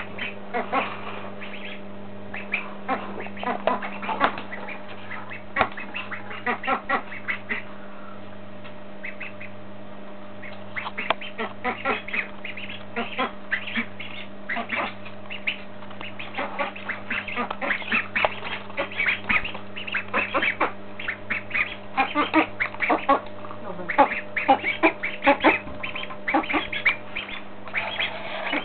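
Ducks quacking in rapid, short, overlapping calls, with a lull of a second or two partway through. A steady low hum runs underneath.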